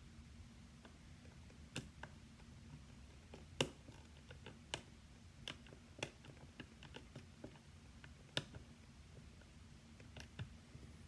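Irregular small metallic clicks and taps from a lock pick working the pins of a pin-tumbler lock under tension, with two sharper clicks about a third of the way in and near the end.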